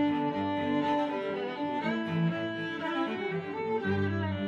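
Background music: a lively Irish fiddle jig with quick changing notes and low held notes beneath about four seconds in.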